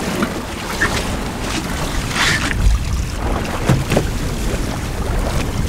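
Strong wind buffeting the microphone over the wash of a rough, choppy sea around a fishing boat, rising and falling in gusts.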